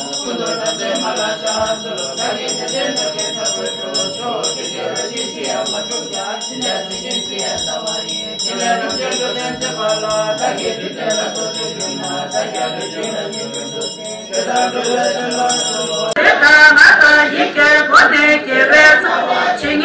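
A group chanting Tibetan Buddhist prayers together in a low drone from prayer texts, with a small bell ringing steadily in a quick rhythm. About sixteen seconds in the bell stops and a louder, closer chant led by a monk takes over.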